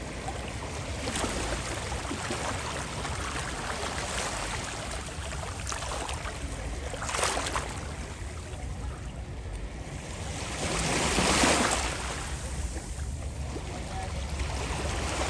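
Small sea waves washing onto the beach in a steady hiss. A short surge comes about seven seconds in, and a longer, louder wave washes up and recedes about eleven seconds in.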